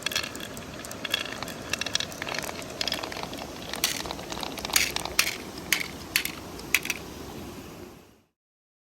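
Glass marbles rolling and clattering down a wooden zigzag marble run: quick runs of small clicks, then a handful of separate louder clacks, over the steady murmur of a river. Everything cuts off abruptly about eight seconds in.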